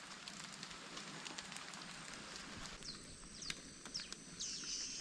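Very quiet, wet jungle ambience: scattered ticks of light rain dripping, and a few faint, high, falling chirps in the second half.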